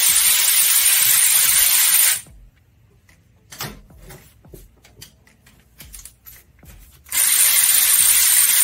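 Powered ratchet on a long extension, running for about two seconds, then again for about two and a half seconds starting about seven seconds in, spinning a bolt. Small clicks and a single knock come from the hand work in the gap between.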